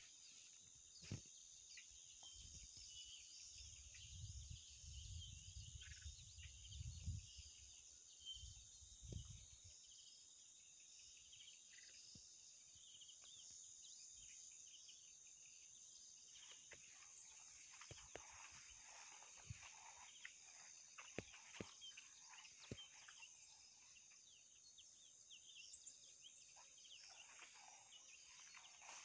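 Faint outdoor ambience dominated by a steady, high-pitched insect drone. A low rumble comes in during the first ten seconds, and scattered soft rustles and ticks follow in the second half.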